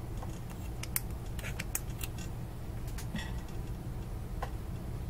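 Scattered light clicks and ticks, about half a dozen, from small tools or objects being handled on a workbench, over a steady low hum.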